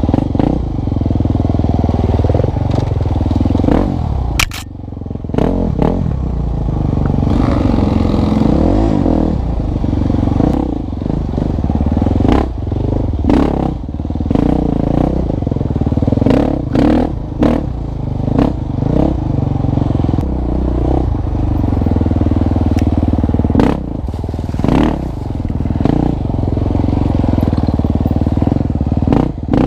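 KTM 350 XC-F Six Days' single-cylinder four-stroke engine, its pitch rising and falling as the throttle is worked on and off, with frequent short clatters and knocks throughout.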